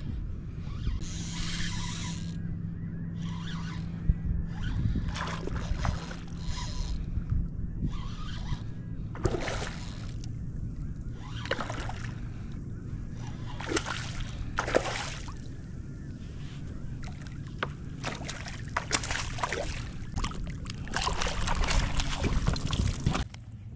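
A hooked redfish thrashing at the surface beside a kayak, with repeated short bursts of splashing that come thickest in the second half, over a steady low hum.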